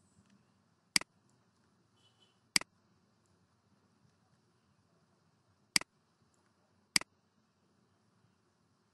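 Four separate sharp computer mouse clicks spread over several seconds, each a quick press and release, over faint background hiss.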